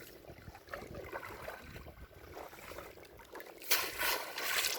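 Water splashing and dripping around a fishing boat in a river creek: small scattered splashes, then a louder rush of splashing for about a second near the end.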